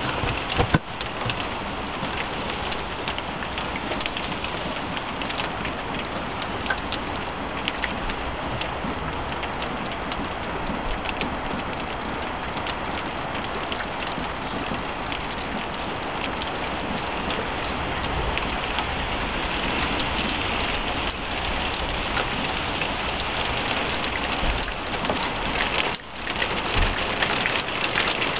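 Heavy downpour: rain falling steadily, with many single drops striking close by. A couple of sharp clicks come at the very start. The rain grows a little louder in the second half and dips sharply for a moment near the end.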